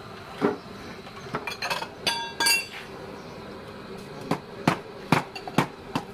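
Serving clatter: a steel ladle and ceramic bowls knocking and clinking around a large metal cooking pot. A ringing clink comes about two seconds in, then a run of four sharp taps in the second half.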